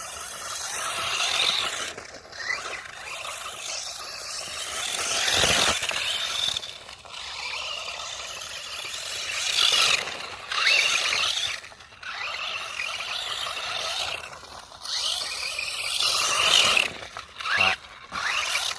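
Brushless FTX Outlaw RC car driving about, its motor and tyres scraping over the ground. The sound swells and fades in several surges as it is driven on and off the throttle.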